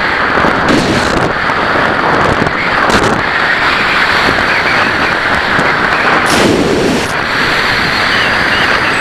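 Loud, rough wind rushing and buffeting over the microphone of a radio-controlled plane's onboard camera in flight.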